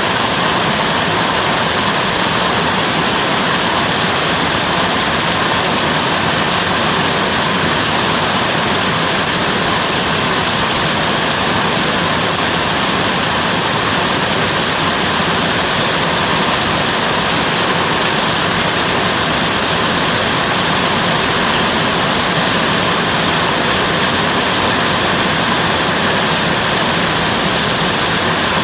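Steady, heavy rainfall: an even, unbroken hiss of rain that neither swells nor fades.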